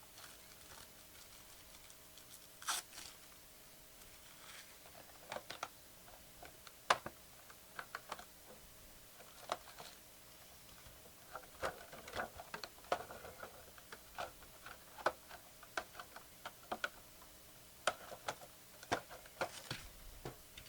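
Computer keyboard keys tapped in scattered, irregular clicks and short runs, with a faint steady hum underneath.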